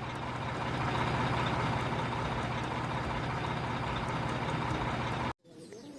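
Truck engine idling steadily, a constant low hum under an even rumble, cutting off suddenly a little over five seconds in, as an edited-in sound effect does.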